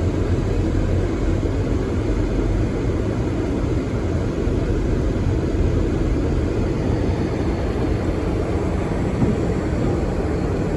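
Steady low rumble of road and engine noise heard from inside a car's cabin as it drives slowly along a snowy highway.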